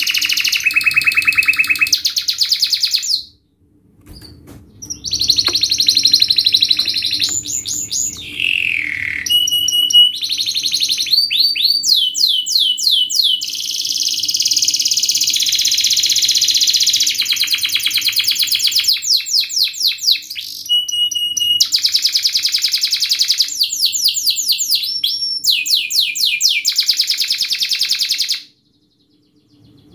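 Domestic canary singing a fast, dense song of rapid trills and quick sweeping notes. The song breaks off briefly about three seconds in and stops near the end.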